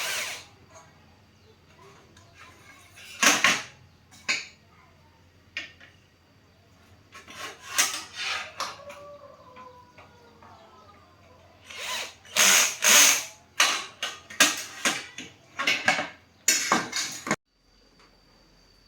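A small handheld power tool run in a series of short, irregular bursts.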